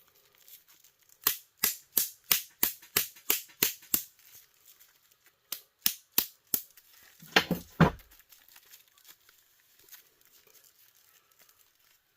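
Repeated sharp taps striking the heater's pressed-in metal parts to knock them loose, about three a second, then a few scattered taps and a louder clatter near eight seconds in.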